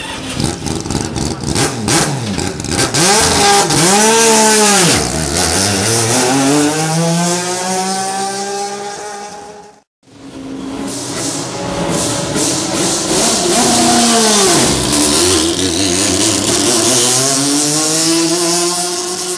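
Mazda RX-8 race car's three-rotor 20B rotary engine at high revs, passing by twice. Each time the pitch swoops up and then drops sharply, then climbs steadily as the car pulls away. The sound cuts out briefly about halfway through.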